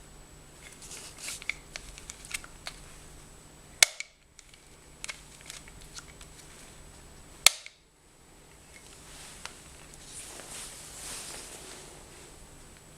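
Handling noises from unpacking an angle grinder: scattered small clicks and knocks of plastic and metal parts, two sharp, loud clicks about four seconds in and again past halfway, and a soft rustle near the end.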